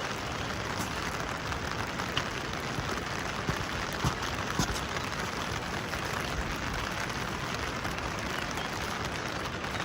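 Steady rain falling, with a couple of louder drips near the middle.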